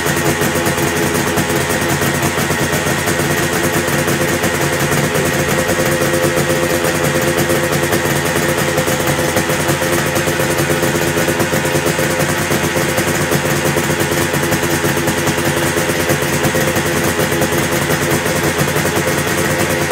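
Honda NSR250's two-stroke V-twin running steadily at idle through RISE ON aftermarket expansion chambers, an even, unbroken engine note with a slight pitch drift near the end.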